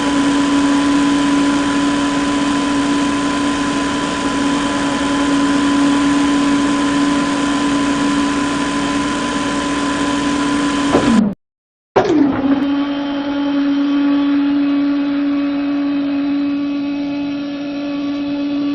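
Small DC motor running with a steady, high-pitched hum. The pitch dips briefly before the sound cuts out for about half a second just past the middle, then the hum resumes at the same steady pitch.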